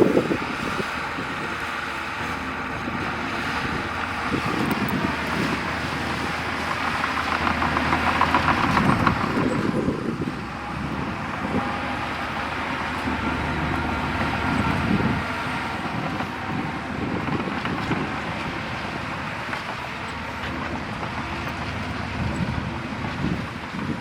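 Heavy diesel earthmoving machinery working, its engine running steadily and growing louder from about 7 to 10 seconds in before easing back.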